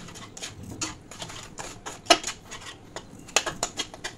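Spatula scraping and knocking against a metal kadai as a thick masala paste is stirred and fried down (the kosha stage), giving irregular clicks and scrapes with sharper knocks about two seconds in and again about three and a half seconds in.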